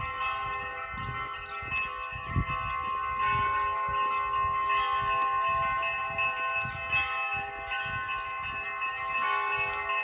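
Orthodox church bells ringing in a continuous peal, several bells of different pitches struck again and again so their tones overlap and sustain. A dull low thump is heard a little over two seconds in.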